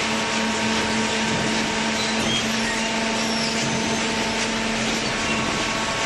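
Waste-paper baler machine running: a steady machine hum with an even whine underneath that does not let up.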